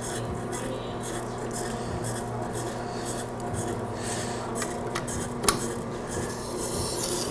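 AquaHone Stylist II scissor sharpener running with a steady motor hum while a scissor blade is rubbed against its honing wheel. There is a sharp click about five and a half seconds in.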